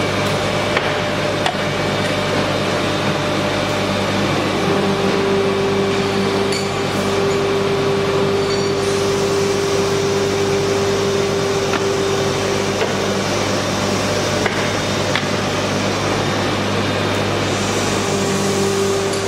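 Single-colour PVC shoe sole injection moulding machine running: a steady mechanical hum and factory noise. A higher steady tone comes in about five seconds in, drops out around thirteen seconds, and returns near the end.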